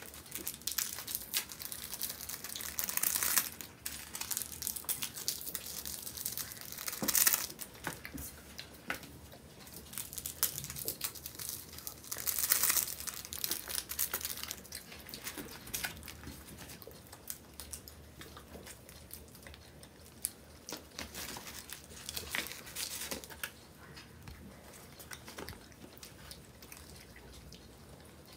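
Small plastic seasoning sachets crinkling and being torn open, in a few louder rustling bursts among many small clicks. Between them come softer eating and handling noises.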